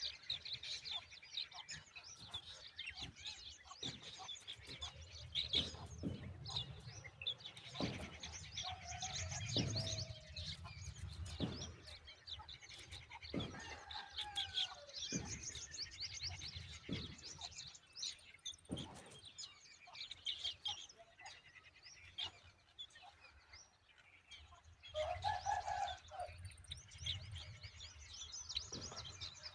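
Birds chirping and calling repeatedly, with a lower, louder call about three quarters of the way in and scattered sharp clicks or knocks.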